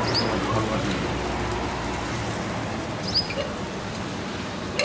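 Steady hissing sizzle of a dosa cooking on a hot flat griddle, with a low hum underneath.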